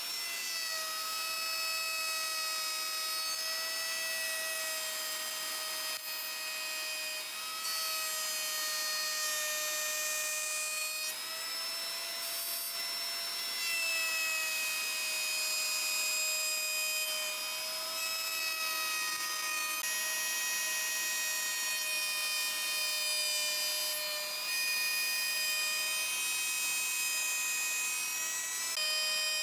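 Table-mounted wood router spinning a bearing-guided trimming bit and cutting along the edge of a wooden panel: a steady high-pitched whine over a cutting hiss, its pitch dipping slightly now and then as the cut takes load.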